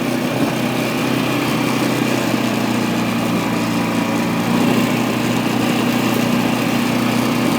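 1997 Kawasaki Prairie 400 ATV's single-cylinder four-stroke engine running at a steady pitch while riding.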